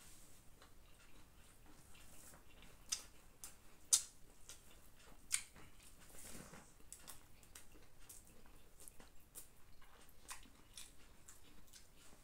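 Person eating biryani by hand with mouth sounds: faint, irregular wet chewing and lip-smacking clicks, with three sharper, louder clicks a few seconds in.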